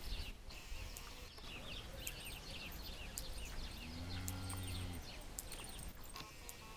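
Cattle lowing: one short, low moo about four seconds in, over small birds chirping.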